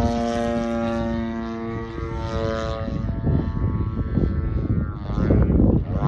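Two-stroke 76cc gasoline engine and propeller of a large RC aerobatic plane droning steadily overhead at a near-constant pitch. About two to three seconds in the drone fades, and wind buffeting the microphone takes over as a low gusty rumble that gets louder near the end.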